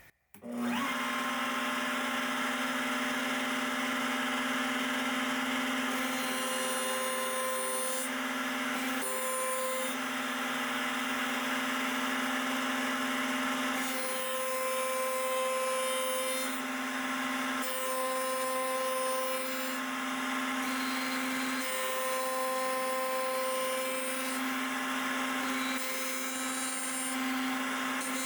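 Small electric power tool starting up and running steadily with a motor hum. Its pitch shifts slightly now and then, and a higher hiss comes and goes several times.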